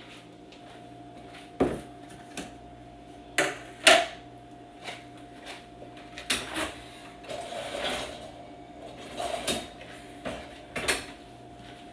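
Knocks and clatters of a plastic bucket being set down on a kitchen counter and its lid taken off, the loudest knock about four seconds in, over a steady hum.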